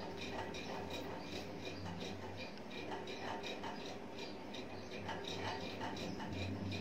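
Mechanical pencil drawing short strokes on synthetic paper: a quick, irregular series of faint scratchy ticks, several a second, over a low steady hum.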